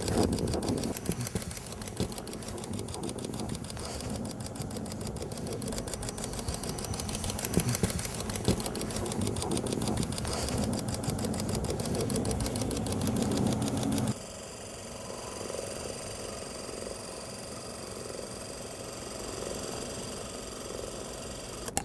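Super 8 film projector running, with a fast, even mechanical clatter over a low hum. About fourteen seconds in the clatter stops abruptly, leaving a quieter steady hum.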